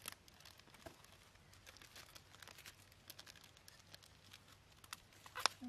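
Curved sickle-like knife cutting fresh coconut flesh out of a half shell: faint, irregular crunching clicks, with one sharper click near the end.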